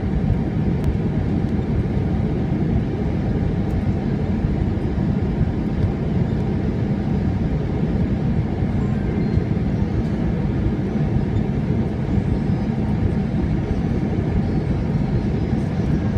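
Steady airliner cabin noise, engines and rushing air heard from inside the cabin as the plane descends on approach to landing.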